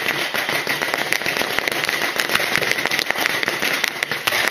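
Fireworks crackling: a dense, continuous run of rapid pops with a steady high tone running through it.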